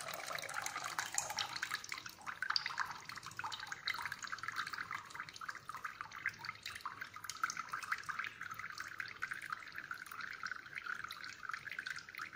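Soaking water drained off soaked whole masoor lentils, falling in a thin stream into a steel bowl with small splashes and drips. The pour is fuller for the first second or two, then settles into a steady trickle.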